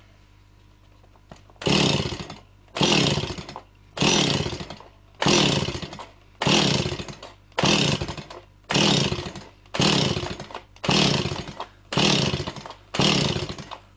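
Stihl MS 170 two-stroke chainsaw being pull-started over and over, about once a second from a second and a half in. Each pull is a short, fading rasp of the recoil starter cranking the engine, which does not catch: the saw won't fire after a carburettor rebuild.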